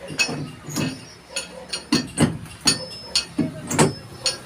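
Hammer blows on nails in wooden boards: about ten irregular, sharp strikes, some with a short metallic ring.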